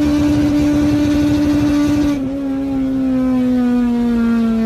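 Car engine running at steady high revs, then about two seconds in the pitch dips slightly and slowly falls as the revs ease off.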